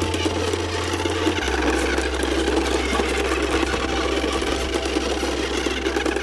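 A toy RC car's small electric drive motor and plastic gears running with a steady buzzing whir. Under it, a low held tone that changes pitch about a second and a half in.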